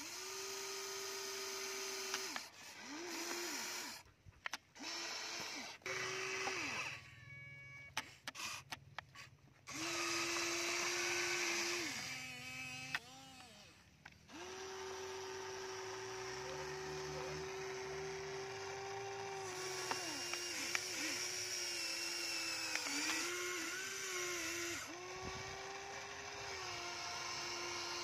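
Electric motors and gearboxes of a Huina RC toy excavator whining as its boom, arm and bucket move, starting and stopping in runs of a second to a few seconds, with one long steady run past the middle.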